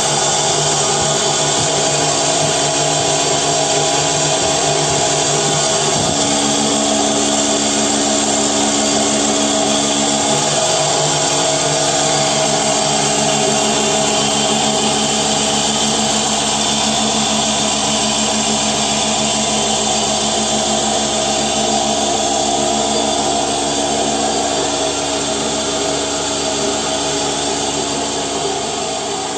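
Milking machine's vacuum pump unit running steadily, a continuous machine drone that eases slightly in level near the end.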